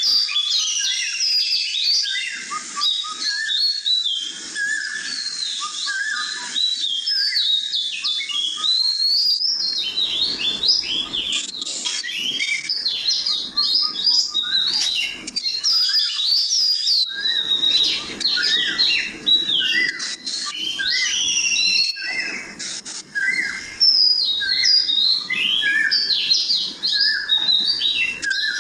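Dense birdsong: many small birds chirping and whistling at once, quick rising and falling notes overlapping without pause. A faint low background noise joins about ten seconds in.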